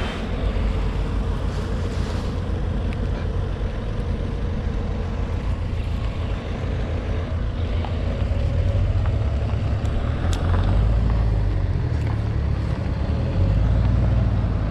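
Wind buffeting the microphone in a steady low rumble, with the rustle of the paraglider's nylon canopy being gathered up for packing.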